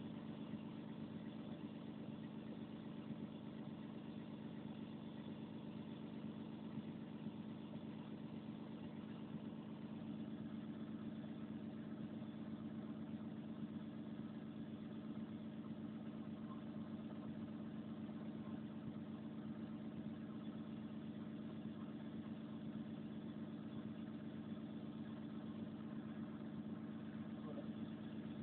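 Diesel engine of a Volvo 360 hydraulic excavator idling steadily, an even low hum with no change in speed.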